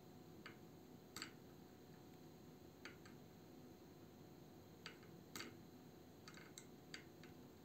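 Faint, scattered clicks and taps of a small plastic toy figure being set down and adjusted on a plate, about a dozen light knocks over quiet room tone.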